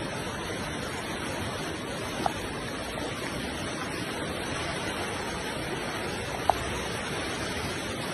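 Floodwater running fast along a street, heard as a steady rushing noise of flowing water. Two short, faint high blips come about four seconds apart.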